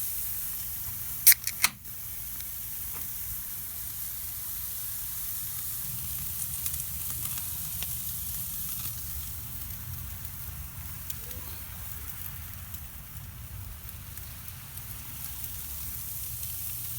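Ribeye and sirloin steaks sizzling on a hot grill, a steady hiss with a low rumble underneath. Two or three sharp clicks come close together about a second and a half in.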